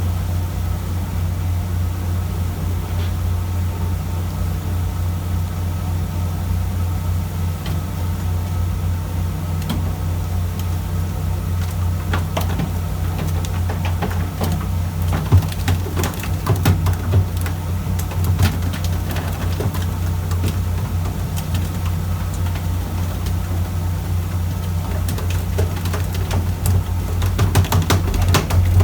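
Fishing boat's engine running with a steady low drone. Scattered sharp clicks and knocks join in from partway through and come thicker near the end.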